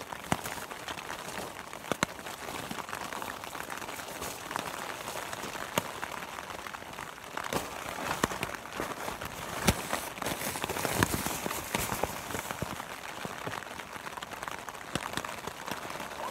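Plastic bag and nylon camping gear rustling and crinkling as someone moves about inside a tent, with a thicker stretch of rustling around the middle.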